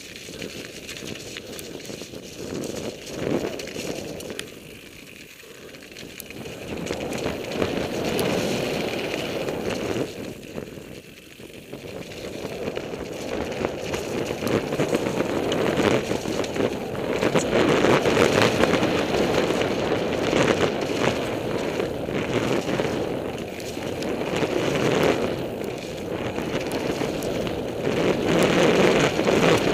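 Mountain bike riding fast down a wet dirt forest trail, picked up by a helmet-mounted camera: steady rough tyre noise on the dirt with the bike rattling over bumps. It eases off briefly a few seconds in and again around eleven seconds, then grows louder as speed builds, loudest near the end.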